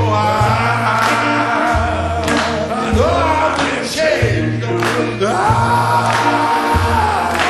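Blues-gospel song: a male voice sings long, sliding held notes over low bass notes and a steady beat.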